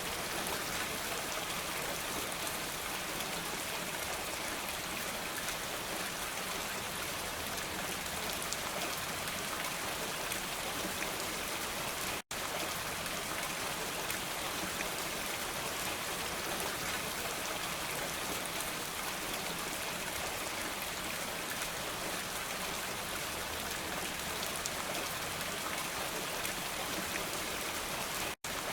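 Steady heavy rainfall, a dense even hiss of drops. It cuts out for an instant twice, about twelve seconds in and near the end.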